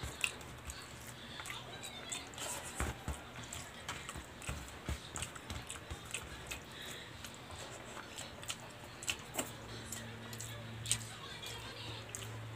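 Eating by hand: fingers pressing and scraping rice and scrambled egg together on a banana leaf, with wet chewing and lip smacks as many small irregular clicks. A faint low hum runs underneath.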